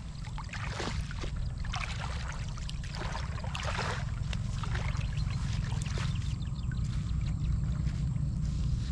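Water sloshing and splashing irregularly as a person wades through shallow lake water, over a steady low rumble.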